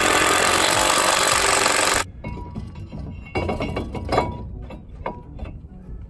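Cordless impact wrench hammering for about two seconds as it runs down the lower ball joint nut, then cutting off abruptly. After it come scattered metal clinks and knocks as a brake rotor is handled and fitted onto the hub.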